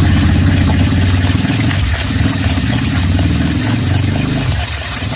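A motorcycle engine running at a steady idle close by. It dips briefly about two seconds in and cuts out near the end.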